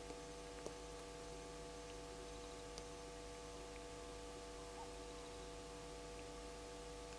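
Steady electrical hum of several fixed tones over faint hiss, with a few faint clicks, about a second and a half apart early on and once more near three seconds in.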